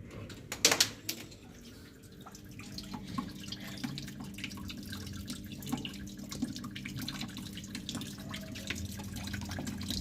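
Two or three sharp knocks about a second in, then water dripping and trickling steadily, with a low steady hum underneath.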